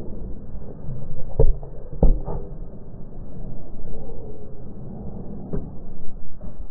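Muffled, dull sound of a football match replay: a low rumble throughout with a few sharp thuds of a football being struck, the two loudest about half a second apart near the start and a weaker one later.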